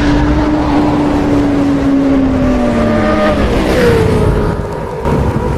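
Motorcycle engine sound effect: a steady engine note that slowly drops in pitch, then gives way to a higher note about four seconds in.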